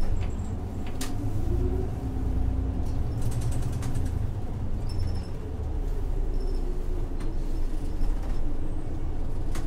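Isuzu Erga bus's 6HK1-TCC inline-six turbo diesel, driving through an Allison five-speed torque-converter automatic, pulling away from a stop, heard inside the bus. The engine note rises about a second in and is joined by a few short clicks and rattles.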